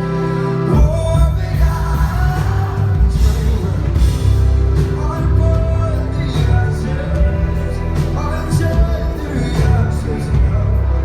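Live band playing a pop-rock ballad with a male voice singing over it; the full band, with heavy bass and drums, comes in about a second in.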